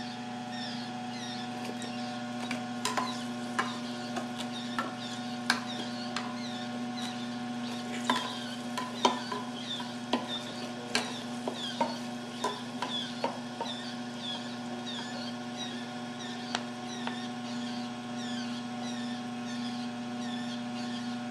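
Masticating juicer running with a steady low hum, its auger crushing grapefruit and pineapple pulp that is being fed through a second time to press out the rest of the juice. A stream of small squeaks and crackles comes from the pulp, with scattered knocks of the plastic plunger in the feed chute.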